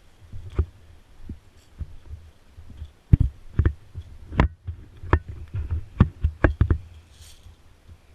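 A series of dull, irregular thumps and knocks over a low rumble, most of them bunched between about three and seven seconds in.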